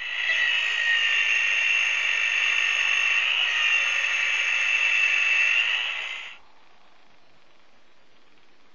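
Steady, high whirring of a saw blade from the novelty Saw IV DVD case, a buzzing power-tool-like whine that cuts out about six seconds in.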